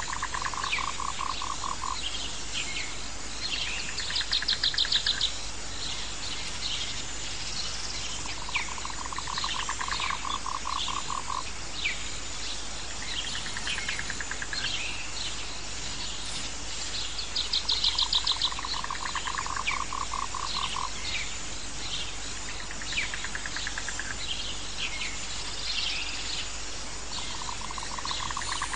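A nature soundscape of animal calls. A buzzy pulsed trill lasting about three seconds comes back roughly every eight or nine seconds, over many higher chirps and short trills and a steady hiss.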